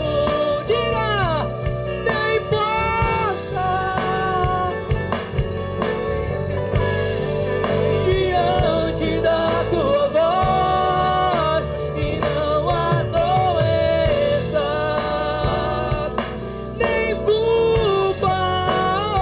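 Gospel worship song played by a band: a voice sings long, held melody notes over steady instrumental accompaniment.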